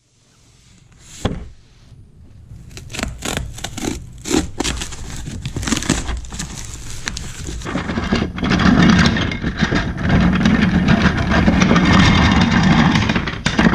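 A cardboard box being torn open by hand, with scattered rips and crackles. Then, for the last five or so seconds, a pile of black plastic hydrofoil track mounts is tipped out, clattering and sliding over one another onto a wooden work table. The clatter is the loudest part.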